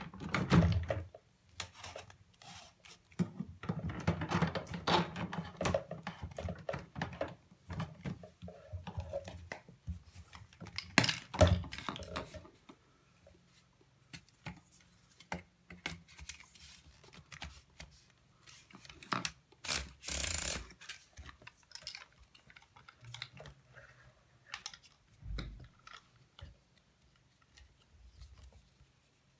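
Handling noise from a switched-off Zelmer Wodnik vacuum cleaner's hose and attachments as they are fitted together: irregular clicks and knocks of plastic couplings and the metal extension tube, and rustling of the corrugated hose. A louder noise lasting about a second comes about twenty seconds in.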